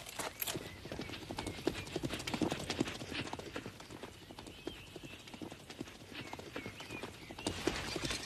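Horses' hoofbeats, a rapid uneven clatter of hoof strikes that grows louder near the end.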